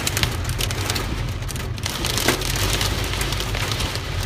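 Heavy hail pelting the car's roof and windshield, heard from inside the cabin: a dense, unbroken clatter of sharp hits over a low steady rumble.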